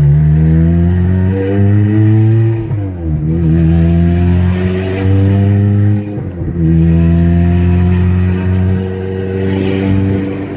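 Toyota Corolla XRS's 2ZZ-GE four-cylinder engine, heard from inside the car, accelerating: its pitch climbs steadily in each gear and drops at two upshifts, about three and six seconds in.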